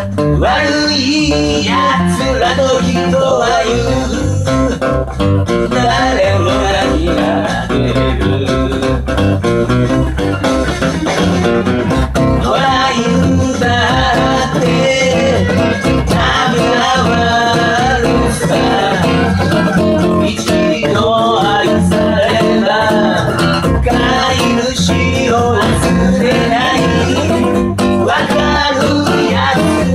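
A man singing a folk-blues song while strumming a steel-string acoustic guitar.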